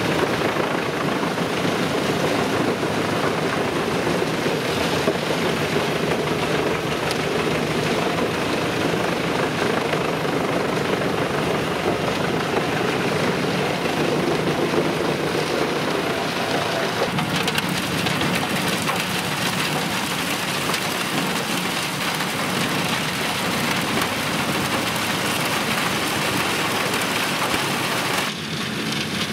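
Mobile wood chipper driven by a large tractor, running steadily, with a dense rushing noise like heavy rain. The sound changes abruptly near the end.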